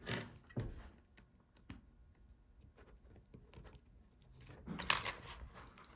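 Light clicks and taps of hands working on a laptop's display panel and lid, with a short scraping rustle at the start and a louder one about five seconds in, as the adhesive strips holding the screen are worked loose.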